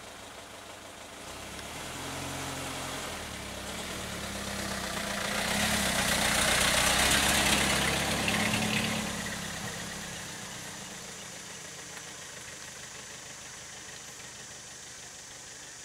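Engine of a large road vehicle growing louder as it approaches, passing close about halfway with a rush of tyre and road noise, then fading away.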